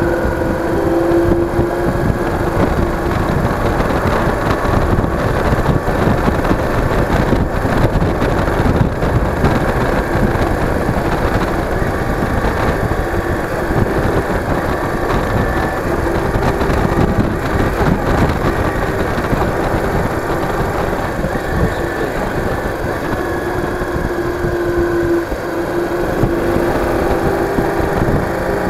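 Yamaha DragStar Classic's V-twin engine running steadily at road speed, mixed with wind rush on the microphone.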